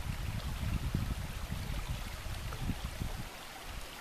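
Small mountain creek running over rocks in a steady rush. A low rumble sits under it for the first three seconds or so, then drops away.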